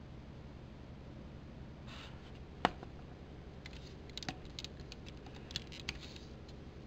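Hard plastic action-figure parts clicking as they are handled: one sharp click about two and a half seconds in, then a scatter of lighter clicks and taps, over a steady low hum.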